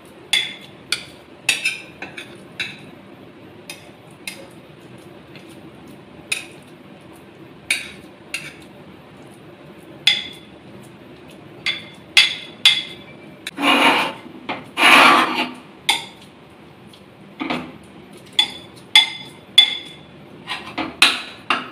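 A metal spoon and a metal spatula clinking and scraping against a bowl and a pan while a soft sweet mixture is scraped out and pressed flat. The clinks are sharp and irregular, with two longer, louder scrapes about two-thirds of the way through.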